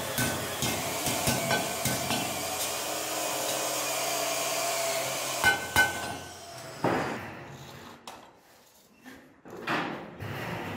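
Hammer blows on metal, about three a second, each with a short ring, giving way about two seconds in to a steady whirring machine noise. Two loud sharp strikes come about five and a half seconds in, followed by scattered quieter knocks.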